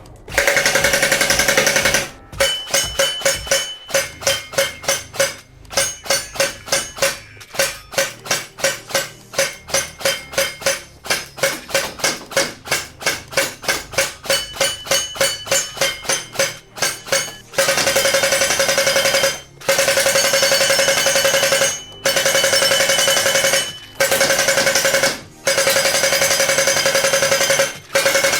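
Electric gel blaster, a TEC-9 replica, firing: a short automatic burst, then a long string of single shots at about three or four a second, then several long full-auto bursts with brief pauses between them. The gearbox motor whine runs under each burst.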